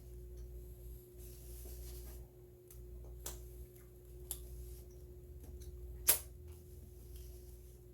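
A person eating a peanut butter and jelly bagel close to the microphone. A few sharp mouth clicks or smacks come through, the loudest about six seconds in, over a steady low hum.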